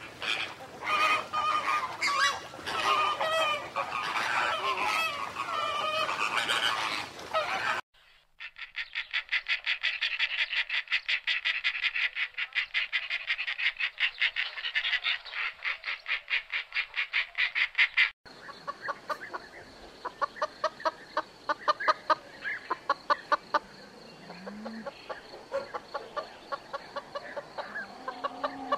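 Bird calls in three abruptly cut sections. First a flock of flamingos honking, goose-like and overlapping. Then about ten seconds of fast, evenly repeated high calls, then slower repeated calls over a faint steady high whine.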